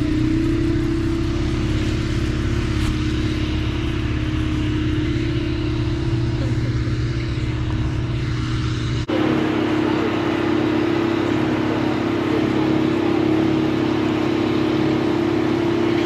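Heavy diesel engines running steadily, with a deep rumble under a droning hum. About nine seconds in the sound changes abruptly: the deep rumble drops away and a steadier machine hum carries on.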